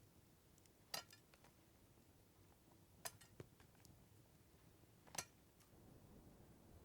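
Three short, sharp clicks about two seconds apart, the middle one followed by a fainter click, over near silence.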